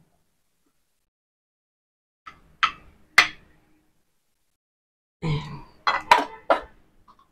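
Dishes and eating utensils clinking as food is served: three sharp clinks a couple of seconds in, then a quick clatter of several knocks near the end.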